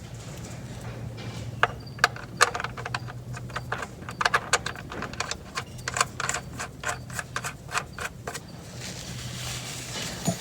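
Irregular metallic clicks and clinks of a wrench on the oil-pan drain plug of a 6.0 Powerstroke as it is threaded back in and tightened, a few clicks a second for several seconds, over a steady low hum.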